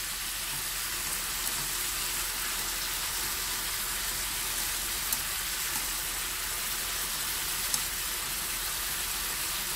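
Pork and shrimp sizzling steadily in hot oil in a frying pan as they are stir-fried with scallion whites, with a couple of sharp clicks.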